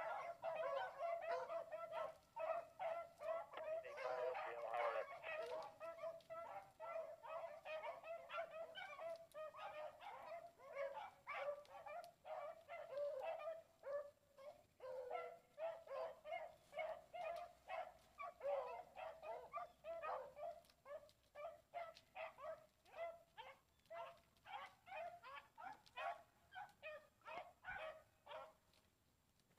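Faint baying of rabbit hounds in a steady run of short, high barks, several a second, thicker in the first few seconds and sparser later: the hounds are running a rabbit's trail.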